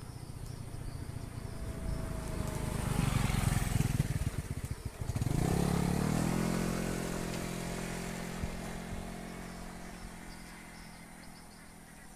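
Motorcycle passing close by: its engine grows louder as it approaches, is loudest around four to six seconds in, then fades steadily as it moves away.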